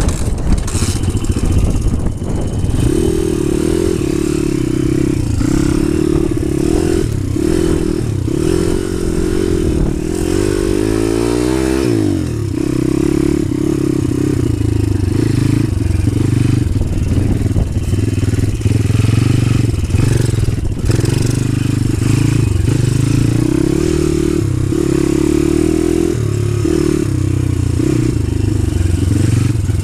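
DemonX Phatboi pit bike's single-cylinder four-stroke engine being ridden, its note rising and falling with the throttle; about ten seconds in the revs drop away and then climb again.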